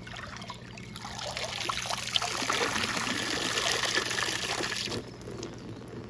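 Water pouring and trickling out of a KOKIDO rechargeable handheld pool vacuum, switched off, as it is lifted out of a hot tub and drains back into the water. The pouring builds, then stops suddenly about five seconds in.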